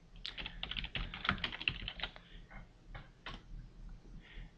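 Typing on a computer keyboard: a quick run of key clicks for about two seconds, then a few scattered single clicks.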